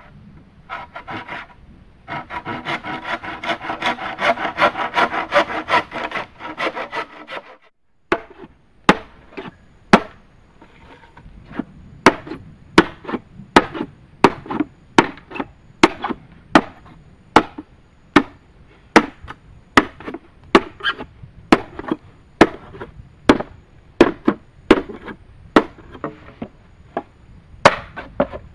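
Bamboo being sawn by hand in rapid rasping strokes. About eight seconds in, this gives way to a long series of sharp chopping strikes on wood, about two a second.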